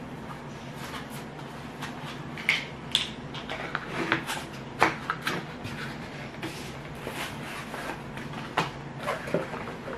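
Scattered small clicks, taps and rustles of airbrush-kit parts being packed back into a rigid cardboard box and its lid being handled, over a steady low hum.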